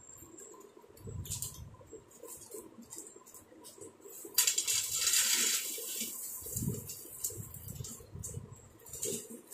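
Plastic snack packet crinkling and rustling, loudest for about a second and a half midway, with scattered small clicks and clinks of peanuts dropping onto a steel plate.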